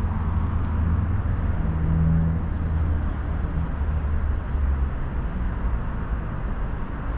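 Low, steady rumble and hum of a freight train, heard from aboard one of its cars.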